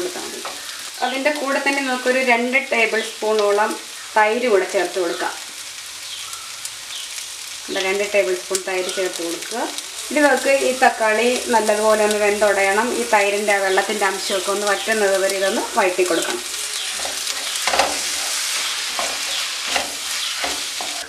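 Onions and tomato sizzling in a white nonstick wok as a spatula stirs and scrapes through them, in two long spells of stirring with a quieter pause about five seconds in.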